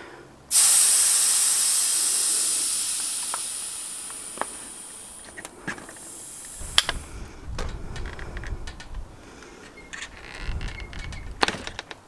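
Air hissing out of the valve of a mobility scooter's front-wheel inner tube as the tyre is deflated. It starts suddenly about half a second in, loud at first, and fades steadily over about six seconds as the pressure drops. A few light clicks of handling follow.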